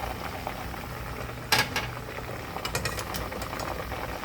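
Chicken drumsticks deep-frying in hot oil, the oil bubbling and crackling steadily, with a sharp knock about a second and a half in and a run of crackles about a second later.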